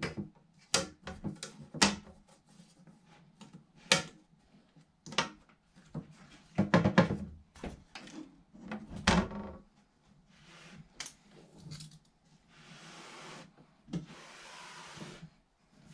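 Sharp knocks, clacks and rattles of the stiff panels of a YakAttack BlackPak kayak crate being handled, swung into place and fitted together. The loudest clatter comes about seven and nine seconds in. Near the end there are a few seconds of scraping and rubbing as the assembled crate is slid and turned on the cloth-covered table.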